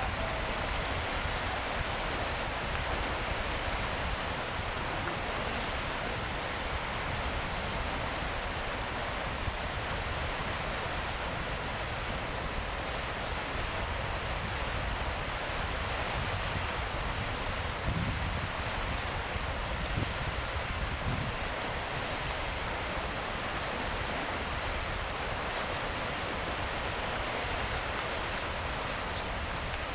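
Atlantic surf on a rocky shore: a steady rushing wash of waves, with a couple of deeper surges about two-thirds of the way through.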